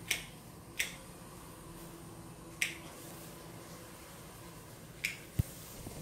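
Four short, sharp snips as plant stems or leaves are cut, irregularly spaced, with a low thump about five and a half seconds in.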